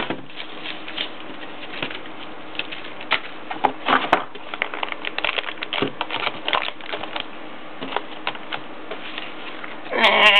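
Clear plastic bag crinkling and rustling as a boxed router inside it is handled, with irregular small clicks and taps.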